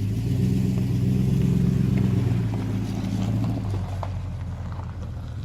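2008 Toyota Tundra V8 with a Gibson cat-back exhaust, running on the road as a low, steady drone. It swells about half a second in and eases off after about three and a half seconds.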